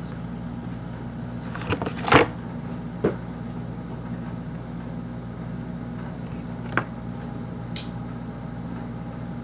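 A few clicks and knocks from parts and packaging being handled, the loudest a cluster about two seconds in, over a steady low hum. A short hiss comes near the end.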